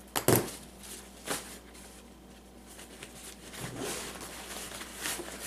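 Osprey Exos 48 nylon backpack being opened by hand: two sharp clicks, then soft rustling of fabric as the top drawcord is pulled loose.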